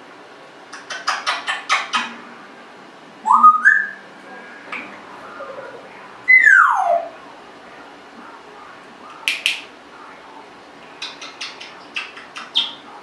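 Congo African grey parrot vocalizing: a quick run of clicks, then a loud rising whistle, then a loud falling whistle that slides down about two octaves. A short sharp call and another run of clicks follow near the end.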